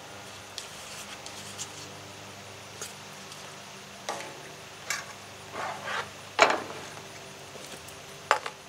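Metal spatula scraping and tapping on the steel cooktop of a Blackstone griddle: a series of short scrapes, the strongest about six and a half seconds in, over a steady low hum.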